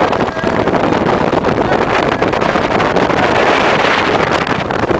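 Steady rush of wind on the microphone of a motorboat underway at speed, with the boat's engine running underneath.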